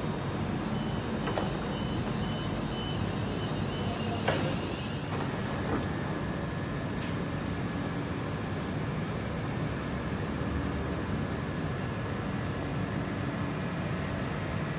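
Electric multiple-unit train standing at the station platform, its onboard equipment giving a steady hum with a faint high tone. A single sharp click sounds about four seconds in.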